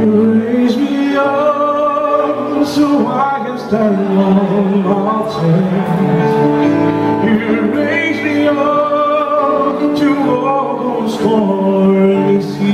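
A man singing into a microphone, accompanied by his Yamaha PSR-S670 keyboard holding steady chords under the voice.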